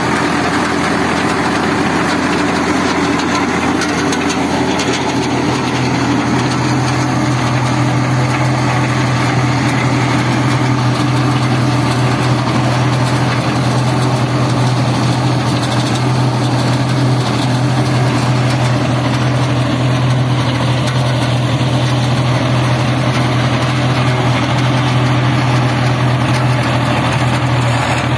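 Swaraj tractor's diesel engine running steadily under the load of a PTO-driven super seeder working paddy stubble, with a constant low hum and a rushing mechanical wash over it. The low hum grows a little stronger about five seconds in.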